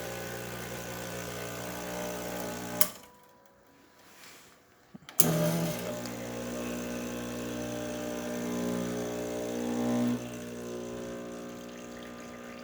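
Expobar espresso machine's pump running a test shot with a steady mechanical hum. It cuts off with a click about three seconds in, is quiet for about two seconds, then starts again abruptly and runs steadily on.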